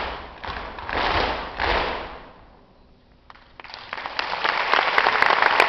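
Flamenco dancers' heel stamps on a wooden stage: a group stamping together about every half second for the first two seconds. After a brief lull, audience applause rises from about three and a half seconds in.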